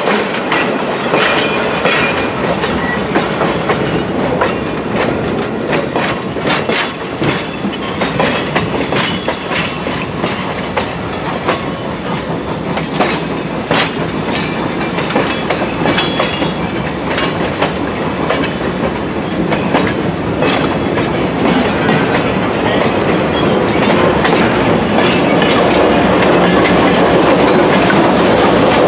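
Passenger train cars rolling slowly past, wheels clicking and clanking over the rail joints. A low rumble grows louder over the last several seconds as the diesel locomotive at the rear draws near.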